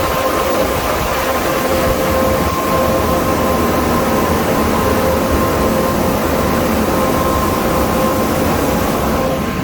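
Belanger air cannon dryer blowers running steadily: a loud, even rush of blown air with a constant motor whine.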